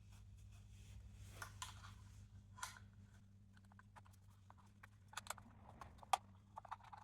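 Faint, scattered metallic clicks and taps of a hex key working the sump-guard bolts, over a steady low hum.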